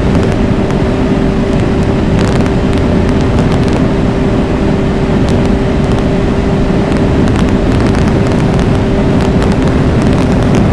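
2022 Ski-Doo Mach Z snowmobile, its 900 ACE Turbo R engine fitted with an aftermarket ECU tune and downpipe, running at high speed under power. The engine note holds a steady pitch throughout, over a dense low rumble from the track and snow.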